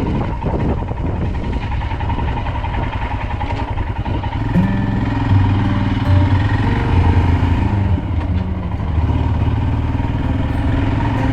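Royal Enfield Himalayan's single-cylinder engine running as the motorcycle is ridden, with wind rushing over the helmet-mounted microphone. About four and a half seconds in, a series of held low notes that step in pitch joins the rumble.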